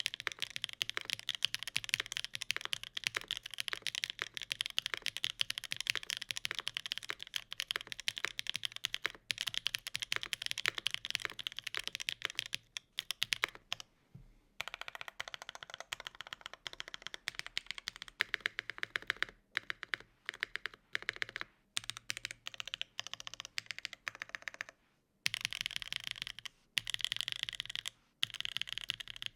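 Fast typing on a mechanical keyboard with Gateron Cream Soda switches, a polycarbonate case, an aluminium plate and GMK keycaps: rapid key clacks with a couple of brief pauses, about a third and about five-sixths of the way in.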